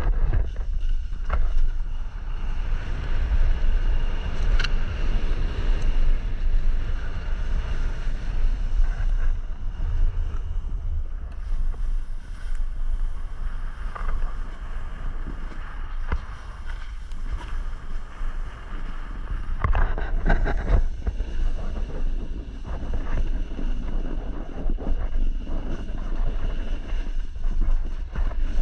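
Wind buffeting the microphone in a heavy, uneven rumble, with the hiss of skis running over snow and a few brief scrapes about two-thirds of the way through.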